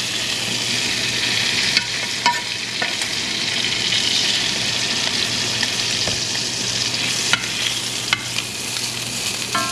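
Chicken breast sizzling in butter in a stainless steel sauté pan, a steady frying hiss, with a few light clicks of a metal spoon against the pan.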